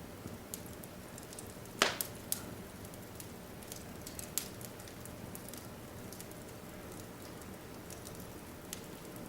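Wood fire in a fireplace crackling: a low steady hiss with scattered sharp pops and snaps, one louder pop a couple of seconds in.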